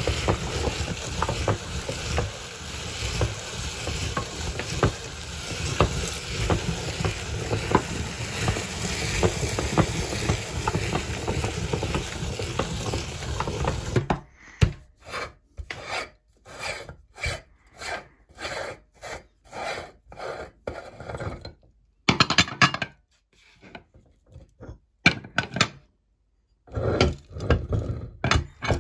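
Hand-cranked cast-metal meat grinder crushing crunchy onion-ring chips: a dense, steady crackling crunch as the crumbs are forced through the plate. About halfway through it changes to separate short crunching and scraping strokes with pauses between them.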